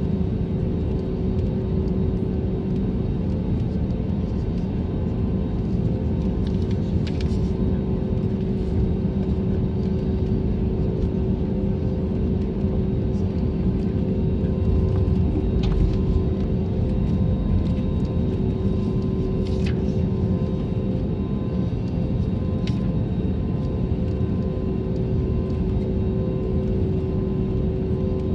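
Cabin noise of an Airbus A320neo taxiing, heard from a window seat over the wing: a steady low rumble of the rolling airliner under an even engine hum at taxi power. A few faint clicks come through it.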